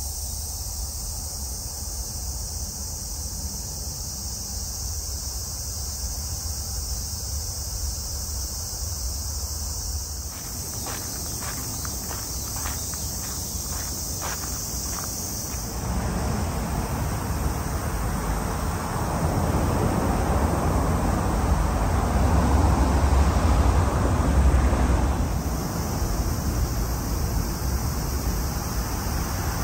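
Steady high-pitched insect chorus in summer greenery, with a run of light clicks about halfway through. In the second half the insects fade under a louder low rush of outdoor noise, then come back faintly near the end.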